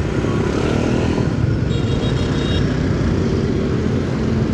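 Motorbike and scooter traffic: small engines running and passing close by in a steady low rumble, heard from a motorbike in the traffic, with an engine rising in pitch near the end.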